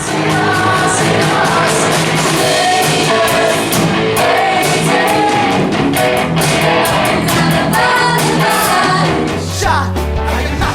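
A Broadway ensemble number: singing over a loud band with a steady beat.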